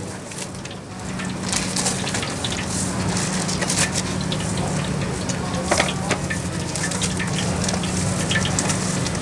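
Hot oil in a wok over a gas burner, sizzling lightly around bits of green herb, with scattered crackles and pops and a louder pop about six seconds in. A steady low hum runs underneath.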